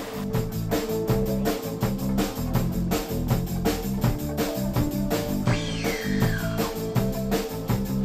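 Background music with a steady beat. A high sliding tone falls briefly a little past the middle.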